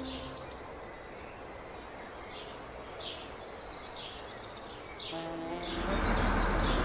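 Cartoon countryside ambience: a soft steady hiss with a few scattered bird chirps. From about five seconds in, a truck engine rumbles in and grows louder as the vehicle drives up.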